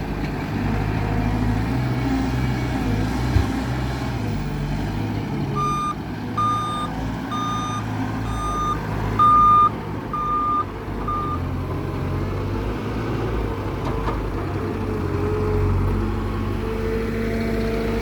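Heavy construction machine's diesel engine running, with its reversing alarm beeping about seven times at an even pace midway through before stopping.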